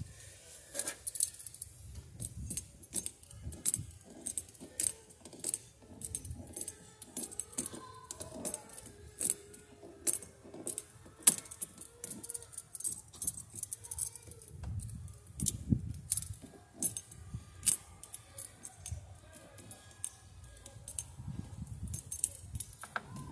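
Pliers working at a truck battery's terminal clamp and cable: many irregular, sharp little metallic clicks and taps of metal on metal, with a few soft handling bumps.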